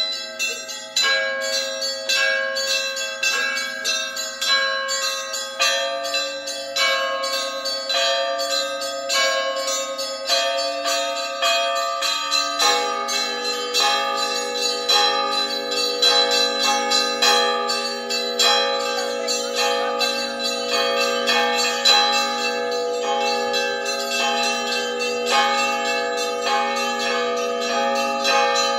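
Russian Orthodox church bells played by hand from a bell tower in an Easter zvon: a fast pattern of small bells struck several times a second over ringing, sustained tones. Lower bells join in about halfway through.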